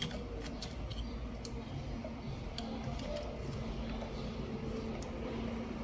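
Scattered light clicks and taps of hands handling the plastic wiring connectors and housing of a car's engine computer, over a steady low hum.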